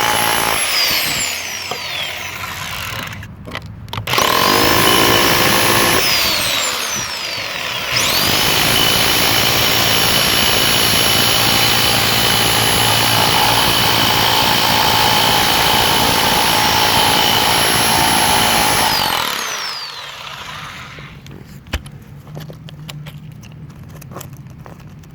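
Bauer 1641E-B corded rotary hammer chipping concrete in three runs: briefly at the start, again about four seconds in, then a long run of about eleven seconds. Each time the trigger is let go, the motor whine falls away as it spins down. Light knocks follow for the last few seconds.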